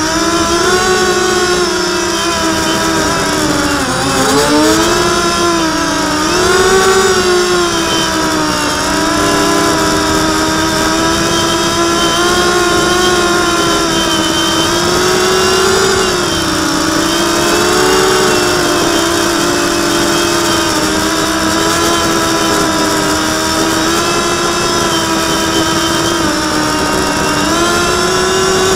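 FPV quadcopter's electric motors and propellers whining steadily, the pitch rising and falling with the throttle, with the biggest swings about four to seven seconds in.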